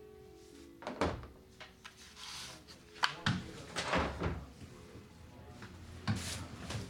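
A handful of separate knocks and bumps, like things being handled or a door in a small room. The loudest come about a second in and around three to four seconds in, with the faint tail of music dying away in the first second.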